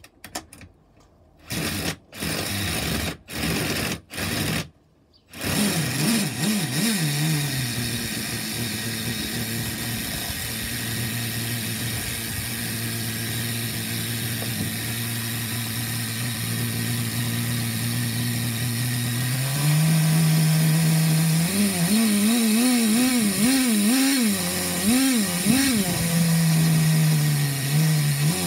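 A cordless drill spins a Traxxas TRX 15 two-stroke nitro glow engine through a one-way starter bearing in four short bursts, and the engine catches about five seconds in. It settles to a steady idle, then near twenty seconds in its revs step up and swing up and down. It is running on 20% nitro fuel without an air filter fitted.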